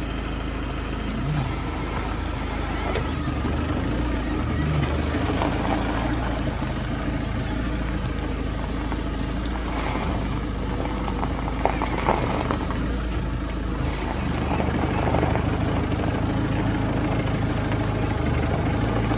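Vehicle engine idling steadily, heard from inside the vehicle as a low, even hum, with a few faint clicks.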